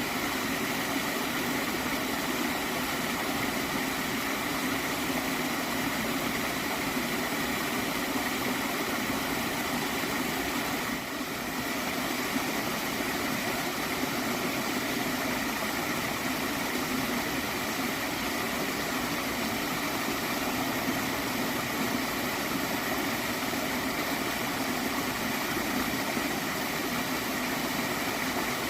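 A gentle stream of water flowing steadily, with one brief dip in level about eleven seconds in.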